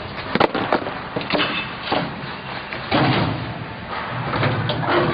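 Sharp knocks and clatter from the steel mould and frame of a QT4-24 concrete block machine being handled during a mould change: a quick cluster of knocks about half a second in, then single knocks every second or so.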